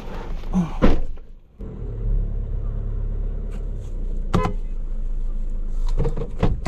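Vehicle engine running with a steady low rumble as a stuck car is towed out of soft sand, after a short drop-out about a second and a half in, with a couple of brief sharp sounds.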